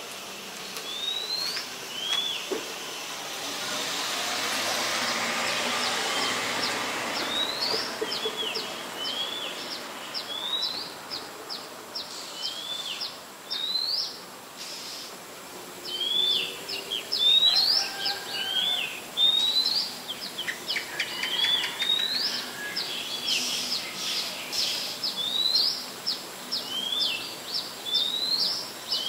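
Small birds calling: many short upward-sweeping chirps, repeated roughly every second and overlapping, growing busier in the second half. A soft rushing noise swells and fades a few seconds in.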